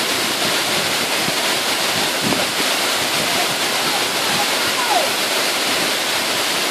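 Waterfall pouring, a steady dense rush of falling water.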